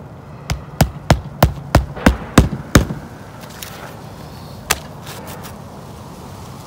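Claw hammer driving roofing nails through asphalt ridge cap shingles: about eight quick sharp blows at roughly three a second, then one more knock a couple of seconds later.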